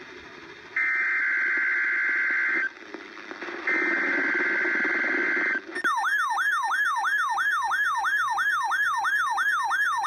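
Emergency Alert System header: two harsh buzzing data bursts from an EAS encoder, each about two seconds long with a second of hiss between them. A siren-like attention tone that sweeps rapidly up and down about three times a second takes over a little after halfway.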